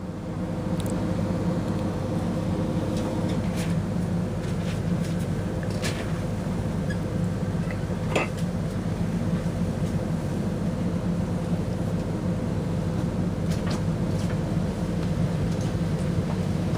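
Steady low rumble and hum of a train, with scattered light clicks and clinks over it.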